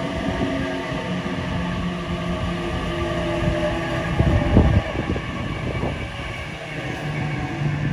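Sydney Trains double-deck electric train moving slowly past the platform. Its motors give a steady hum of several tones over a low rumble, with knocks from the wheels on the track, the loudest about four and a half seconds in.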